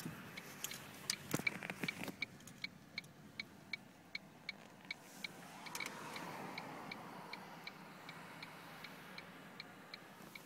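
Car turn-signal indicator clicking steadily inside the cabin, about two and a half ticks a second, with a few louder knocks about a second in.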